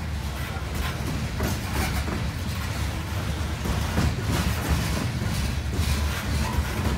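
Coal hopper cars of a CSX freight train rolling past: a steady low rumble of steel wheels on the rails, broken by scattered clicks and knocks.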